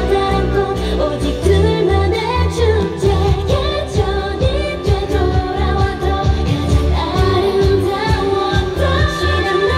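K-pop girl group dance-pop song with female vocals sung into microphones over a steady bass beat, played through stage speakers.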